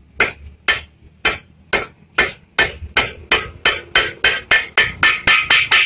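Rapid hammer blows on metal, driving a new greased pivot bushing into the pivot tube of a Yamaha Vixion swingarm. About seventeen sharp strikes, about two a second at first and quickening to about four a second near the end.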